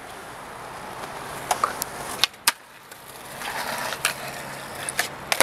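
Skateboard wheels rolling on concrete, with several sharp clacks of the board popping and landing, and a longer scraping rush as the board grinds along a concrete ledge about three to four seconds in.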